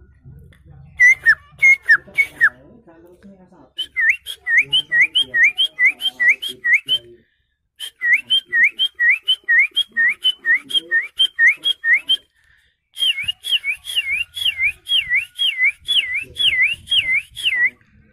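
A man whistling by mouth in imitation of birdsong: quick repeated swooping notes, about three a second, in three long runs with short breaks between.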